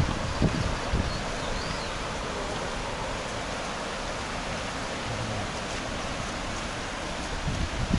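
Steady rushing of river water after a typhoon flood, with a few short low thumps about half a second and a second in and again near the end.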